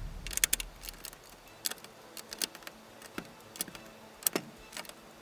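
Plastic building bricks clicking and snapping together as pieces are handled and pressed on: sharp, irregular clicks, some in quick pairs.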